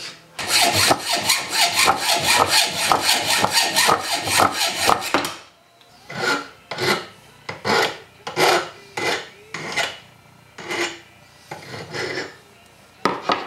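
Hand file rasping across a steel chisel blade clamped in a bench vise, taking off the bulky end where the handle was. Quick, continuous strokes for about five seconds, then slower, separate strokes.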